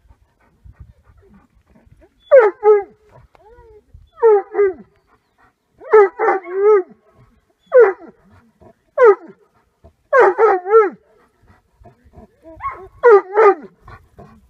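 A dog barking in short groups of one to three barks, repeated every one to two seconds, starting about two seconds in.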